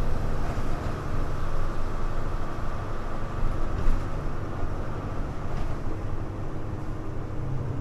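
Hino Blue Ribbon U-HU2MLAA city bus heard from inside the cabin: the diesel engine running with a steady low drone under road noise, and a couple of faint knocks partway through.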